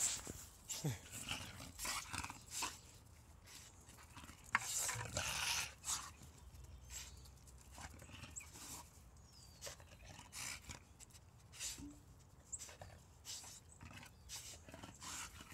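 Two pit bulls mating, heard as short, irregular bursts of breathing and scuffling.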